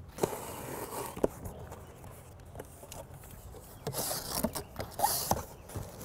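Cardboard boxes being handled and a carton's flaps pulled open: a couple of light knocks in the first second or so, then cardboard rustling and scraping about four to five seconds in.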